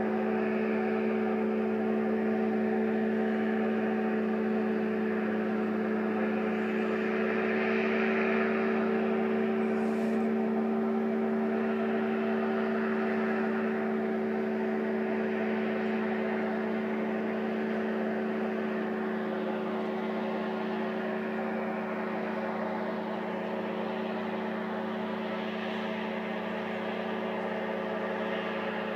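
Airboat engine and propeller running at a steady speed, an even-pitched drone that holds throughout.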